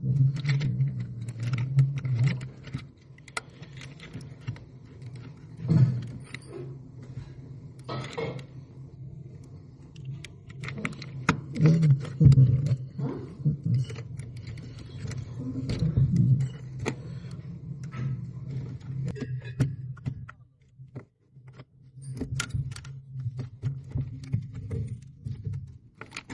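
Irregular small metallic clicks and clinks over a steady low hum, with a few louder knocks: tools and metal parts being handled while working inside a fridge.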